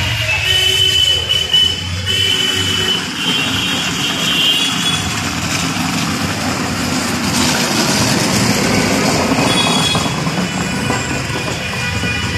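Busy city street traffic: a close auto-rickshaw and passing cars running, over steady road noise, with high wavering tones during the first few seconds.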